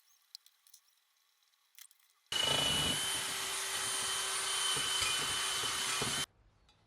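A power tool running steadily for about four seconds, a grinding noise with a steady whine in it, starting and cutting off abruptly about two seconds in. A few light clicks come before it.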